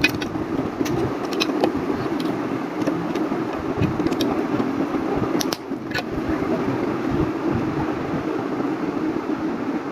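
Plastic building bricks clicking sharply a handful of times as they are pressed together and handled, over a steady background drone.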